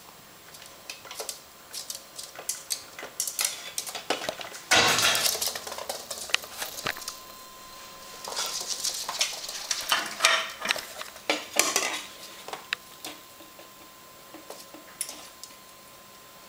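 A plastic water bottle with a metal cap being knocked and pushed around on a laminate floor by a ferret: repeated clinks and knocks, with a louder scraping clatter about five seconds in and another busy stretch a few seconds later.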